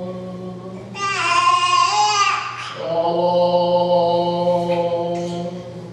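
A small child's high, drawn-out vocal squeal about a second in, answered by a man's long, steady held vocal note, the two taking turns making noises.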